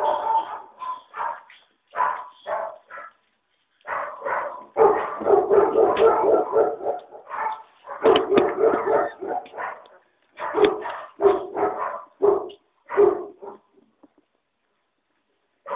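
Five-week-old puppies yipping and barking in quick runs of short, high calls, with a brief pause about three seconds in and breaking off near the end.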